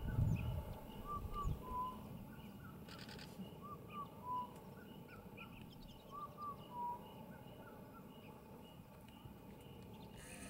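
A bird repeating a short three-note call, two quick rising notes then a lower held one, about every two and a half seconds, with fainter calls of other birds around it. There is a brief low rumble at the start and a buzzing sound near the end.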